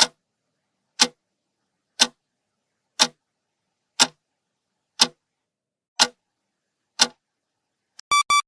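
Clock ticking once a second, a countdown timer for guessing the riddle. Just before the end it gives way to a quick run of short bright chime notes, a time's-up signal.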